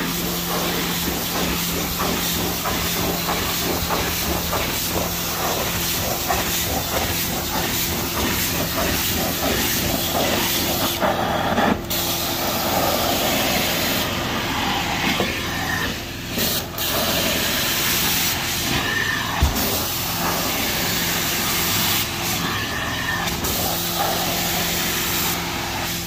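Hot-water carpet extraction stair tool being worked over carpeted stairs: a steady hiss of spray and vacuum suction over a low machine hum. The high hiss cuts out briefly several times as the tool is lifted and moved.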